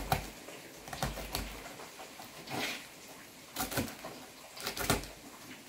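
A kitchen knife slicing a green pepper into thin rings on a plastic cutting board: a few short, irregular taps as the blade meets the board.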